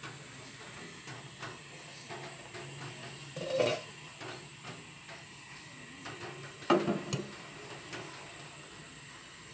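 Steady hiss of a gas burner heating a boiling stainless steel steamer pot, with two metal clanks of the steamer's pot and lid, a softer one about three and a half seconds in and a louder one near seven seconds in.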